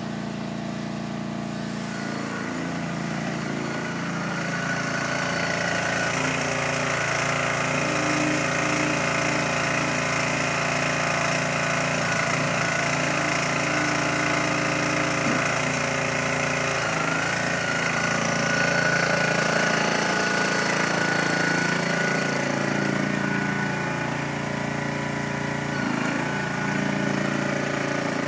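Kubota KC70 motorized wheelbarrow's engine running, its pitch shifting up and down several times as the machine works.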